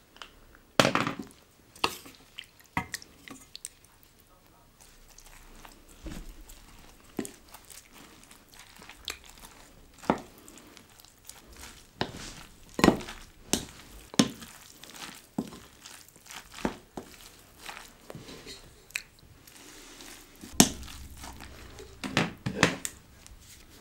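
Eating sounds: a spoon knocking and scraping against a bowl at irregular moments, with chewing in between.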